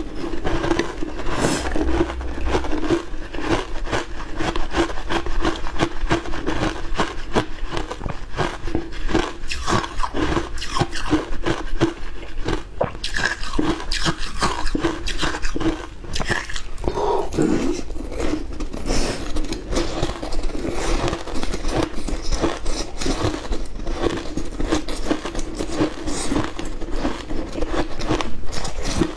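Frozen matcha ice being bitten and chewed: a steady, unbroken run of crunching and crackling.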